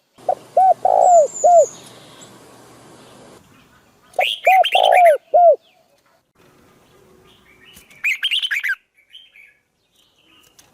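Bird calls: a group of four short, arched notes, repeated a few seconds later, then a quicker run of higher-pitched notes.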